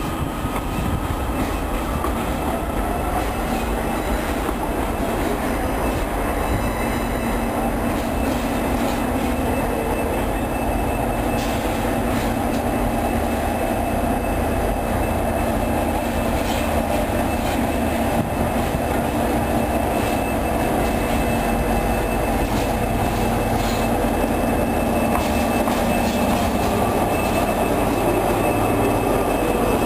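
An Iarnród Éireann 201 class diesel-electric locomotive runs slowly along the platform road and passes close by, its engine running steadily and getting gradually louder as it draws near.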